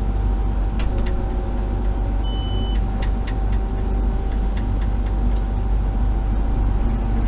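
Case IH 7130 combine running steadily in the field, a heavy low rumble with a steady whine over it and a short high tone about two seconds in.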